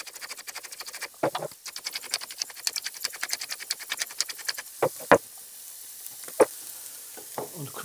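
Hand-twisted spice mill grinding salt and pepper over a bowl, a fast run of rasping clicks that stops after about four and a half seconds. A few sharp taps follow later.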